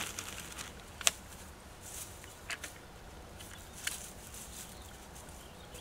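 Faint, scattered rustles and light ticks of hands handling daffodil bulbs in a paper bag and working them into soil, with one sharp tick about a second in.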